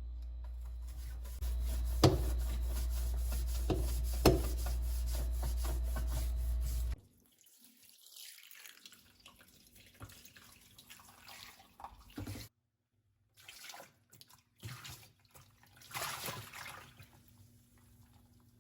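Water running from a tap with a steady rush and a couple of knocks, shut off suddenly about seven seconds in. After it, faint drips, splashes and handling sounds.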